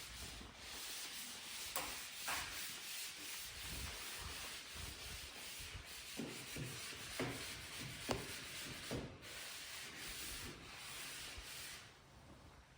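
Hand sanding of wood: sandpaper rubbing continuously over a wooden surface, with a few light knocks, easing off near the end.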